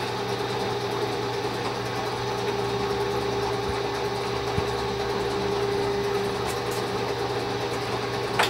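South Bend lathe running with a steady hum from its electric motor and belt drive.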